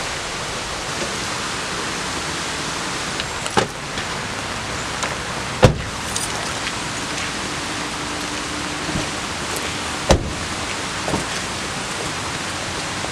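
Car doors of a Honda CR-V shutting: three sharp thuds, about three and a half, five and a half and ten seconds in, the middle one loudest, over a steady water hiss.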